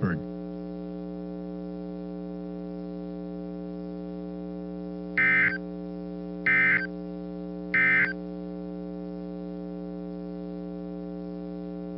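Three short warbling data bursts of an Emergency Alert System end-of-message (SAME) code, about a second apart, over a steady electrical hum. They mark the end of the severe thunderstorm warning broadcast.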